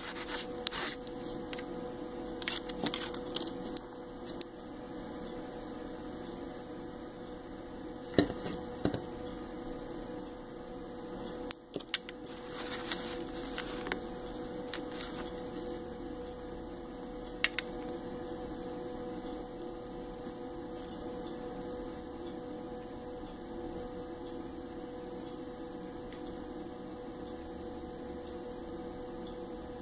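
Steady electrical hum, with a few short taps and scraping rubs as a metal nail-stamping plate is wiped with a pad and handled, most of them in the first half.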